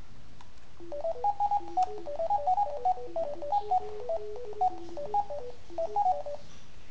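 Electronic phone ringtone playing a quick two-part melody of clean beeping tones, starting about a second in and cutting off about six and a half seconds in.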